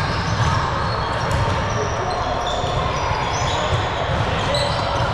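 Ball game in a large indoor hall: a ball bouncing and being hit over a steady echoing din of play, with short high squeaks and distant voices.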